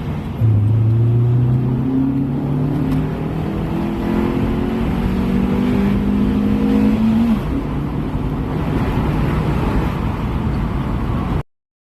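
Mini One's engine induction noise heard from inside the cabin as the car accelerates: the intake note rises steadily in pitch, drops suddenly about seven seconds in as for a gear change, then climbs again, and cuts off shortly before the end.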